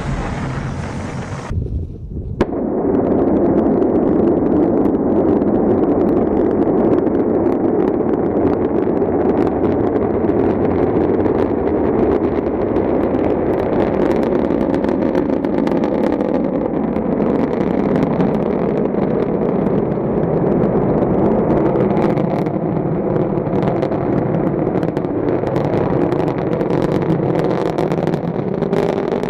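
Rocket engines running at launch: a loud, steady rumble with crackling that grows stronger from about halfway through. It begins after an abrupt cut about two seconds in.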